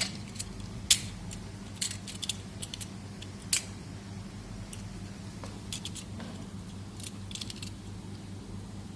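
Scattered small clicks and taps of laptop parts being handled during disassembly, the sharpest about a second in and again about three and a half seconds in, over a steady low hum.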